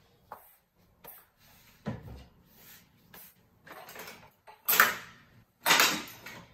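Kitchen handling sounds at a gas stove: a thump about two seconds in, then short noisy bursts of rubbing or scraping, the loudest two close together near the end.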